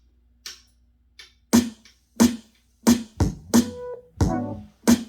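Electronic hip-hop track played through Canton Plus X.2 bookshelf speakers and picked up in a small room. After a quiet start with a faint hit, a drum-machine beat comes in about a second and a half in, with sharp hits roughly every two-thirds of a second, and bass and synth chords join a couple of seconds later.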